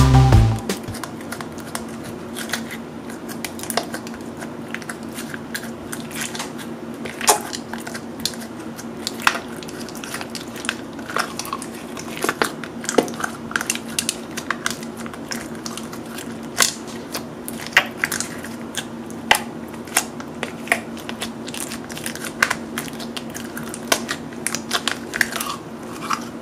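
Glitter slime with pearl beads being squished, pressed and poked by fingers in a clear container, making irregular sticky clicks and pops over a faint steady hum.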